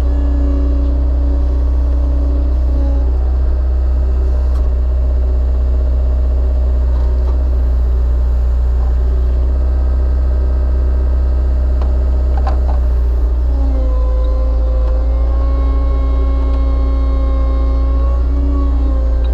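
Skid steer engine running steadily under the log splitter attachment, with a deep continuous rumble. A higher whine joins about two-thirds of the way through, and two short sharp knocks come before it.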